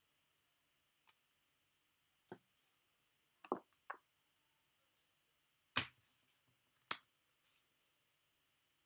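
Scattered light taps and clicks of tarot cards being handled and laid down on a table, about nine in all, the loudest about six seconds in.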